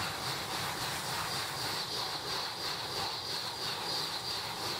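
Shinkansen bullet train passing close by at high speed just out of a tunnel: a steady rushing noise with a high hiss, pulsing faintly as the cars go by.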